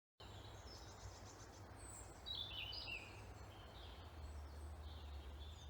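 Faint songbirds chirping and twittering in woodland, one short falling twitter about two seconds in, over a steady low hum.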